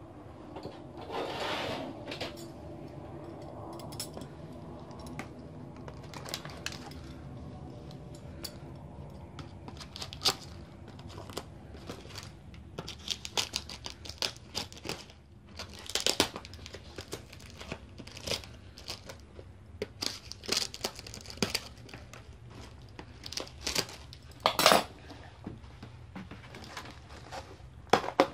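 Cardboard egg-crate pieces and a clear plastic tub being handled: scattered crinkles, scrapes and sharp taps. The loudest taps come about sixteen and twenty-five seconds in.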